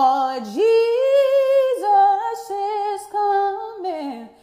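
A woman singing unaccompanied, holding long notes with vibrato and sliding between pitches, with no clear words.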